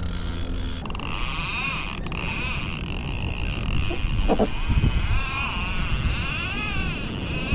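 Fishing reel's drag whining in wavering tones that rise and fall as a hooked fish pulls line, over wind and water noise. The sound changes abruptly about a second in.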